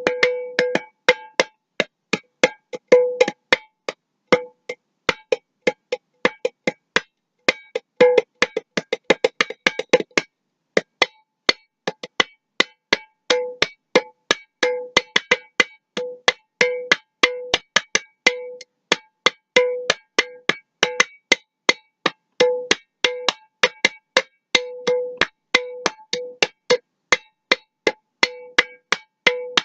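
Glass mason jar being tapped in a rhythmic pattern: a steady run of sharp taps, many of them ringing on with a clear tone, with a quick flurry about eight seconds in.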